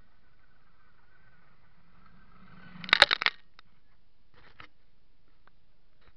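Handling noise from an action camera being picked up off gravel: a short burst of sharp crunching clicks about three seconds in, then a few faint clicks. A faint steady high whine underneath stops with the burst.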